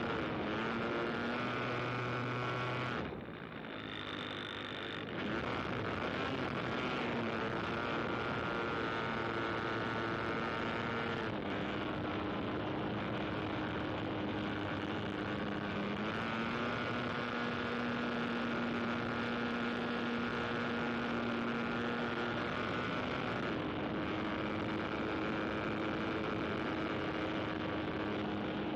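Propeller aircraft engine droning steadily, its pitch stepping up and down every few seconds as the throttle changes. The sound dips briefly about three seconds in.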